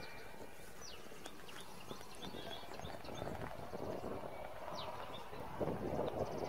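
Open-air ambience: a steady rush of background noise with short, falling bird chirps scattered through, and a louder stretch of rough, irregular noise near the end.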